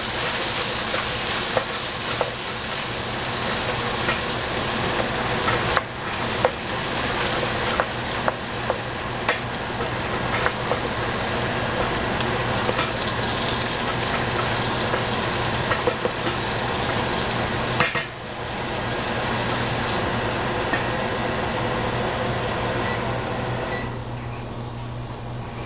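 Food sizzling in a frying pan as it is stir-fried, with a spatula clicking and scraping against the pan again and again. The clicks stop after a brief dip in the sizzle about two-thirds of the way through, and the sizzle eases off near the end.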